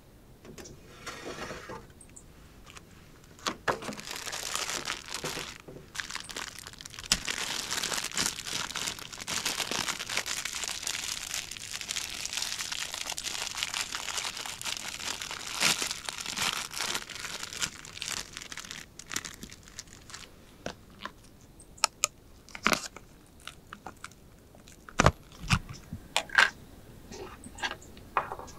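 Plastic packet of udon noodles crinkling and tearing as it is opened and squeezed out into a pot, a dense crackly rustle through most of the first two-thirds. After that come scattered sharp clicks and taps of chopsticks against a plastic tub and the pot as chopped green onions are pushed in.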